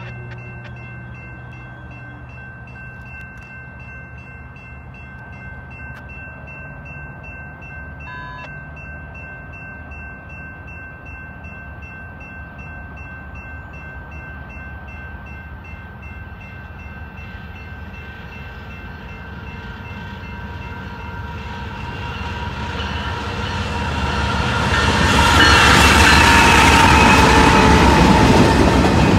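Grade-crossing warning bell ringing steadily as a BNSF intermodal freight led by GE diesel locomotives (an ES44C4 and a Dash 9-44CW) approaches. The rumble of the engines and wheels grows loud over the last several seconds as the lead locomotive reaches the crossing, with its horn sounding.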